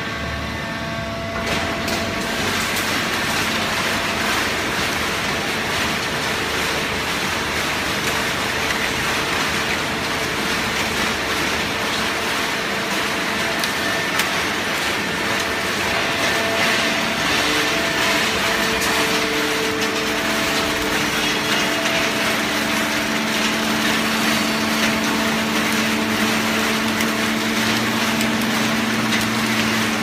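Fully automatic horizontal hydraulic baling press running: a steady mechanical noise with a few held humming tones from its hydraulic power unit and motors. It grows louder about a second and a half in.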